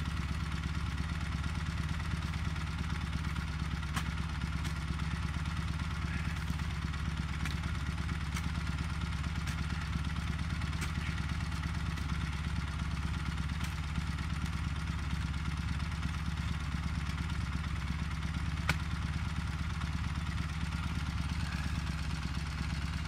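Soviet sidecar motorcycle's flat-twin engine idling steadily while stuck in snow, with a few sharp clicks on top.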